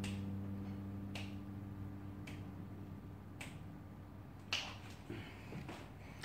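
Five finger snaps at a slow, even beat, about one a second, over the fading ring of a plucked double bass note.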